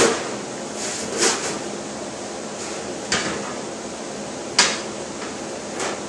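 Galvanized sheet-metal pieces clanking against a bench-top hand brake as they are positioned and worked, while each piece is cross-broken. Five sharp metallic knocks come one every second or so over a steady hiss.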